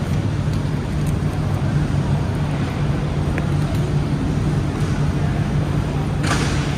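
Steady low drone of background room noise in a large hall, with a continuous low hum. A brief rustle about six seconds in.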